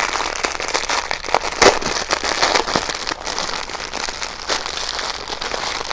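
Clear plastic packaging crinkling as a bundle of small bags of diamond-painting drills is handled and pulled open: a dense run of crackles, with a sharper snap just under two seconds in.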